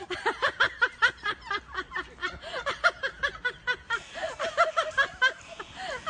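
People laughing and giggling, quick repeated pitched 'ha' sounds several times a second, in more than one voice.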